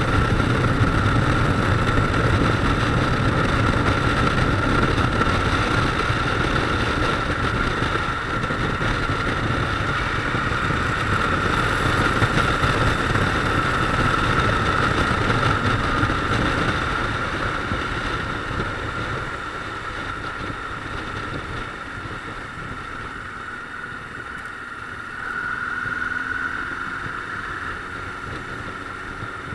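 Motorcycle on the move, its engine running under a steady rush of riding noise. The sound grows quieter about two-thirds of the way through, then briefly rises again near the end.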